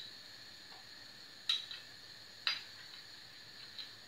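Metal spoon clicking against a small glass dish of lemon juice while lemon seeds are fished out: a few sharp, separate clinks that ring briefly, about one every second or so.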